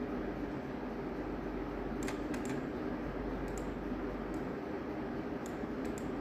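Light clicks of a computer mouse and keys, about nine of them singly and in quick pairs starting about two seconds in, over a steady low background hum.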